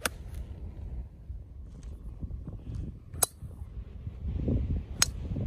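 Golf club striking a ball off the tee with a sharp crack, three times: near the start, a little over three seconds in, and about five seconds in. Wind rumbles on the microphone between the strikes.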